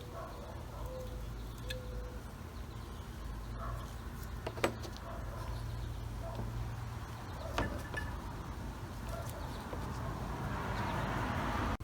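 Small metal carburettor parts and tools clicking sharply twice while the carburettor is dismantled, over a steady low hum, with a hiss building near the end.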